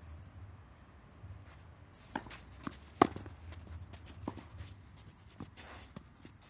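Tennis rally on a clay court: a sharp racket-on-ball hit about three seconds in, the loudest sound, with a few fainter ball hits or bounces and footsteps on the clay around it.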